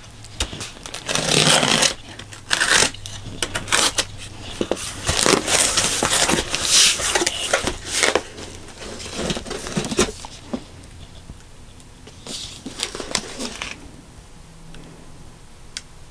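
A cardboard shipping box being opened by hand: packing tape pulled and torn, and the cardboard flaps scraped and folded back, in a run of irregular rasping bursts and clicks. Near the end there is quieter handling as a hardcover book is lifted out.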